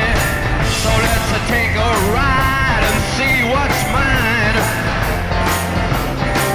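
Background rock song: a singing voice over guitar and drums with a steady beat.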